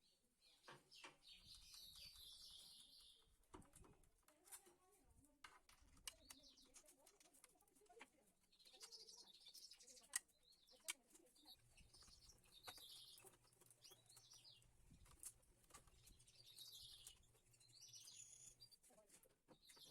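Faint bird chirping in short, irregular bouts, with scattered light clicks and knocks.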